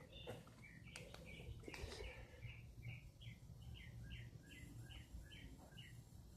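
A bird calling faintly: a steady run of short, high chirps, about three a second, that stops shortly before the end, with a few faint knocks in the first two seconds.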